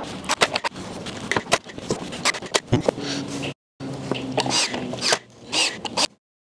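Cordless brad nailer firing a series of sharp shots into pine shiplap boards, with the boards knocking as they are laid onto the wall panel. It cuts off suddenly near the end.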